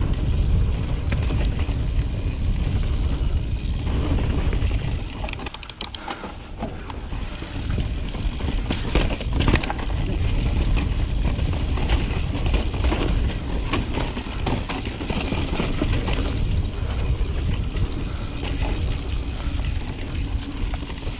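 Intense Carbine 29er mountain bike riding down a rocky dirt trail: tyres on dirt and rock, with the bike rattling and knocking over bumps, under heavy wind buffeting on the microphone.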